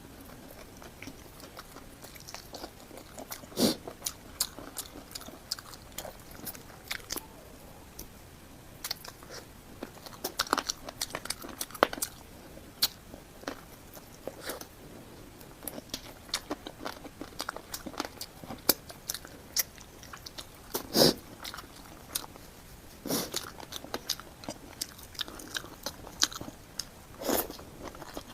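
Close-miked eating: a person biting and chewing food, with frequent short crunches and mouth clicks and a few louder bites scattered through.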